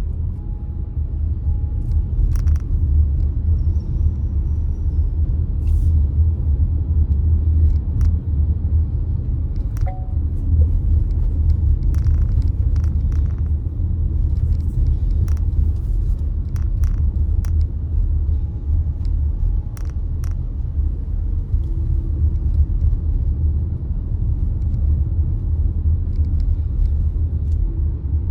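Steady low rumble of a car being driven, the road and engine drone heard from inside the cabin, with scattered faint light clicks.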